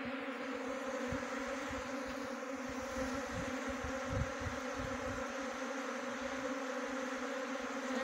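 A swarm of honey bees buzzing in flight around a wooden hive box: a steady, even hum.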